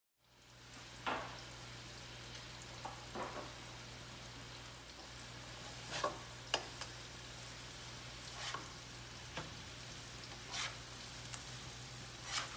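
Sausage frying slowly in a little oil in a frying pan, a steady low sizzle, with a utensil scraping and stirring it in the pan now and then.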